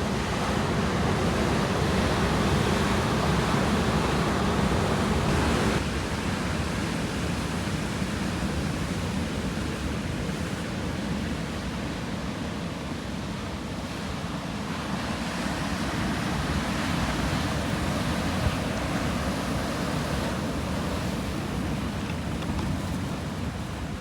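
Sea waves surging and washing in, a continuous rush that swells and eases: loudest in the first six seconds, dropping suddenly, then building again about two thirds of the way through.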